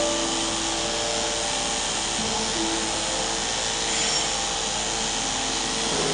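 Electric pet clippers buzzing steadily as they shave through a dog's heavily matted, felted coat. Soft background music plays underneath.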